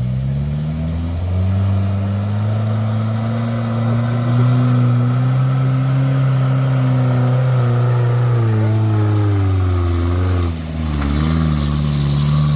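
Heavy vehicle's diesel engine labouring up a steep grade. Its note rises slowly and then sags, drops off briefly about ten seconds in, and picks up again.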